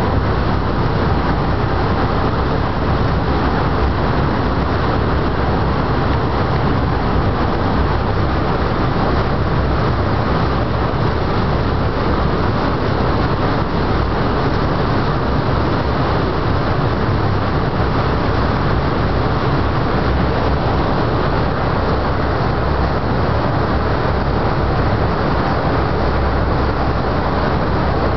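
Boat motor running steadily at speed, mixed with the rush of the churning wake water.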